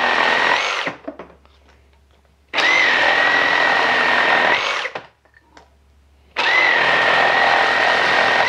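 Milwaukee M18 Super Sawzall reciprocating saw cutting through a thick wooden block in straight-cut mode with orbital action off. A cut ends about a second in, a full cut of about two seconds fills the middle, and a third cut starts near the end. Each cut is a steady high motor whine over the rasp of the blade in the wood, with short pauses between cuts.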